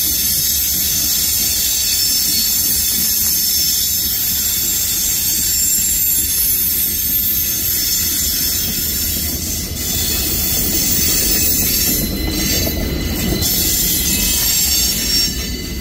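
Freight train cars rolling slowly past with a steady high-pitched screech of brakes dragging on the wheels, over a low rumble. The train seems to be moving with its brakes still applied.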